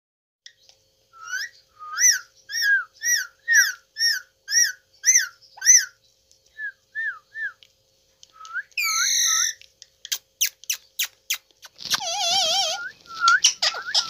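Indian ringneck parrot whistling a run of repeated rising-and-falling notes, about two a second, then a few softer notes. About nine seconds in comes a harsh squawk, followed by a quick series of clicks and warbling, trilling whistles near the end.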